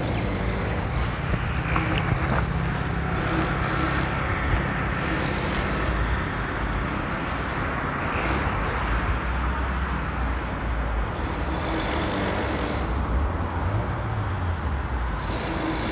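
Steady road traffic noise: a vehicle engine running with a low, continuous hum under the general sound of the road.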